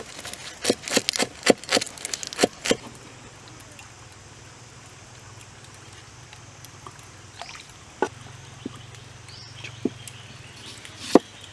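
Large kitchen knife chopping fresh green herbs on a wooden cutting board, quick chops at about three or four a second, stopping after nearly three seconds. A few single light knocks follow as the chopped greens are moved into a wooden mortar.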